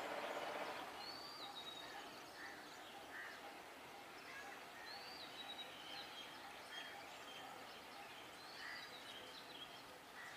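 Birds calling over faint, steady outdoor background noise: one bird repeats a short high gliding call about every four seconds, with smaller chirps in between. A louder noise fades out about a second in.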